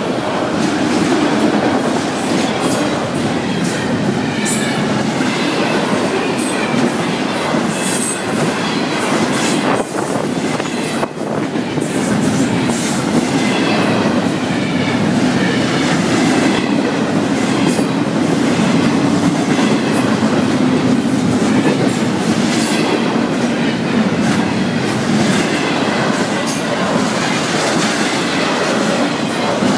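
A freight train's autorack and double-stack intermodal cars rolling past close by: a steady rumble and clatter of steel wheels on the rails, with repeated sharp clicks.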